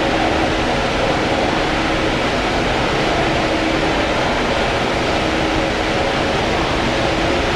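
Industrial blanching machine running: a steady, even noise with a faint steady hum underneath.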